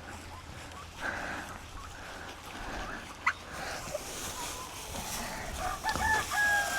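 Farm poultry calling: a few short pitched calls near the end, over a noisy background, with one sharp click about three seconds in.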